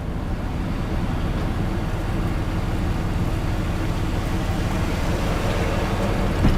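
Steady road and engine rumble inside a moving vehicle's cab.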